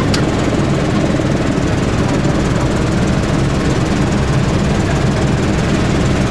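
Bell helicopter's rotor and turbine engine running in flight, a loud, steady drone with a fast low pulsing, heard from inside the cabin.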